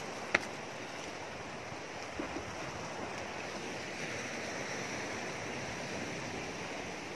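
Sea surf washing steadily against a rocky shore, with one sharp click about a third of a second in and a couple of faint ticks a little after two seconds.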